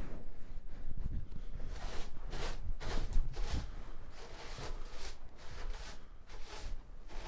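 Broom sweeping the floor in short brushing strokes, about two a second, starting about two seconds in; the floor is being swept of the mess left by pulling out the old stovepipe.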